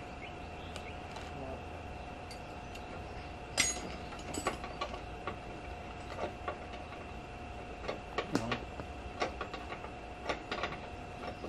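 Hand spanners clinking and clicking against metal and bolts, in scattered short strikes, the loudest about three and a half seconds in and again about eight seconds in, over a faint steady hum.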